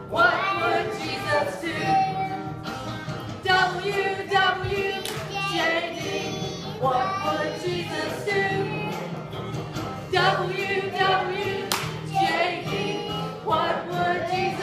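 A group of voices singing a children's worship song together: two children on microphones, with adult voices singing along.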